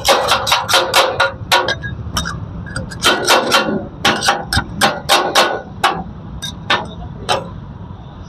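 Katakat: two steel spatulas repeatedly striking a large flat griddle tawa as chicken is chopped on it, giving sharp metallic clanks several a second in quick runs, thinning out near the end.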